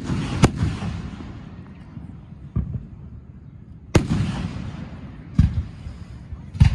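Aerial fireworks shells bursting with sharp bangs: two close together at the start, a fainter one about two and a half seconds in, another at about four seconds, and two more near the end. The loudest bangs trail off in a rumbling echo.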